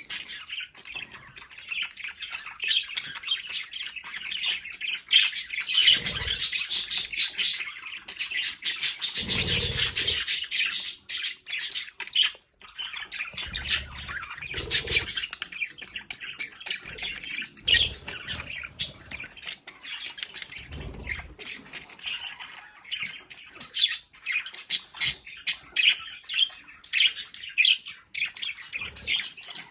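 Several budgerigars chattering, with dense, rapid chirps and squawks that keep up throughout. A few low thumps come in between.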